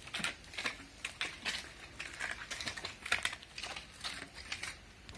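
A steel plastering trowel scraping over a wet cement skim coat (aci) on a plastered pillar, in a quick, uneven run of short strokes.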